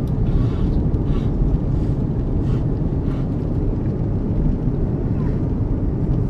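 Steady low rumble of airliner cabin noise inside an Airbus A340-600.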